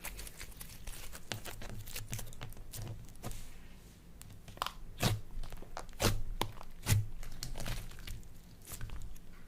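Slime being squeezed and worked by hand, giving a run of crackles and crunches, with three louder crunches about five, six and seven seconds in.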